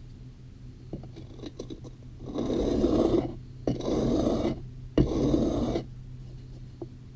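Chisel blade being rubbed back and forth on a sharpening stone: three rasping strokes of about a second each, honing down a chipped edge. The stone is rough enough to scratch up the bevel rather than polish it.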